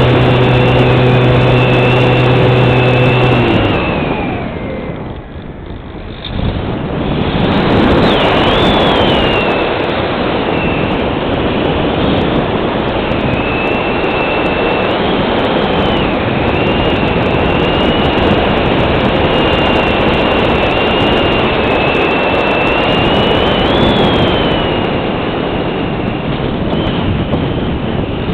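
Multiplex Cularis electric motor glider's motor and propeller running with a steady hum, cutting off about three and a half seconds in. After a brief lull, rushing wind over the airframe fills the rest as a steady noise, with a thin high whistle wavering in pitch throughout.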